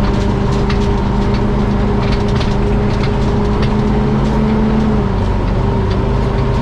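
Fire truck engine running steadily as the truck drives off-road, its tone dropping a little about five seconds in, with scattered sharp cracks and knocks over it.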